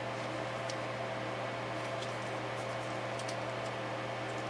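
Steady low electrical hum and hiss of the workbench room, with a few faint clicks as ribbon cables are worked loose from the synthesizer's boards.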